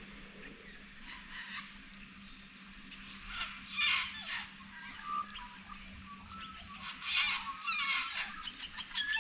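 Wild birds calling and chirping, calls coming more often from about three seconds in and a quick run of rapid chirps near the end, over a faint steady low hum.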